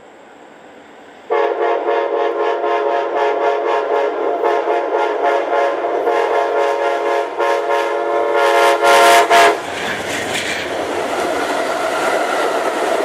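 Amtrak Crescent passenger train's multi-chime locomotive horn blown in one long blast that starts suddenly about a second in and is loudest near nine seconds in as the locomotive passes close by. The horn then cuts off, and the passing train's rumble and wheel clatter on the rails carry on.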